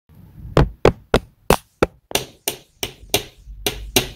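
Makeup brush tapped against the microphone up close: a quick, slightly uneven series of sharp taps, about three a second.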